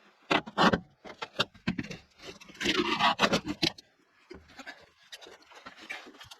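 Irregular knocking and scraping, with a denser burst of scraping and knocks about two and a half to three and a half seconds in.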